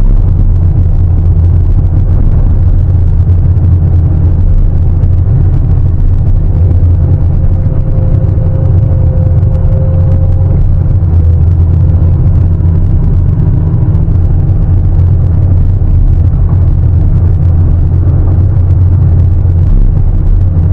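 Heavy diesel engine of a large excavator working, a loud, steady low rumble with a faint higher whine in the middle.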